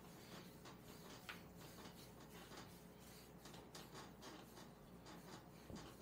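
Faint rubbing and soft slick sounds of hands sliding and kneading over oiled skin during a leg massage, coming in quick irregular strokes.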